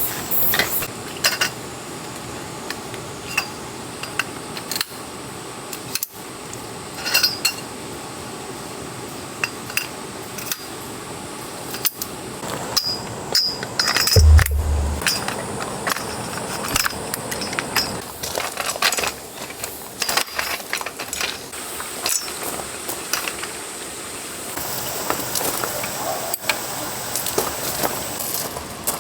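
Objects being handled: many light clinks, taps and knocks, with a heavier thump about halfway through, over a steady thin high-pitched tone.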